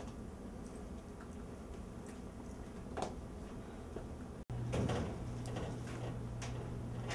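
Scattered clicks of a computer keyboard and mouse being used over room tone. About halfway through, the sound cuts out for an instant, and after that a steady low hum is louder.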